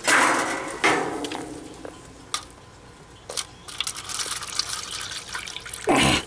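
Water poured from a plastic jug into a dish, splashing, with a few sharp clicks in between. The pour is loudest at the start, about a second in and again near the end.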